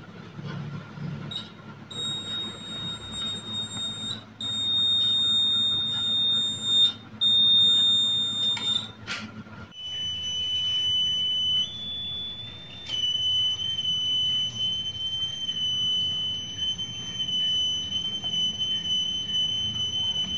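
Buzzer of a homemade flame-sensor circuit sounding a steady high-pitched alarm tone while a lighter flame is held at the sensor, signalling that the flame is detected. The tone breaks off briefly twice. After about ten seconds a second sensor's buzzer takes over with a slightly lower tone, which jumps up in pitch for about a second and then settles back.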